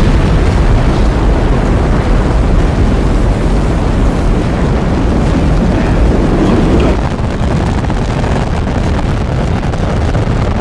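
Space Shuttle launch: a loud, steady rumble from the rocket engines and solid rocket boosters at liftoff, easing slightly about seven seconds in.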